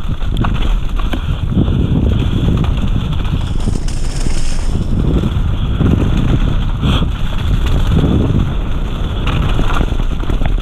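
Mountain bike descending fast on a dirt forest trail: a continuous rumble from the tyres and bike over the rough ground, with frequent knocks and rattles from bumps.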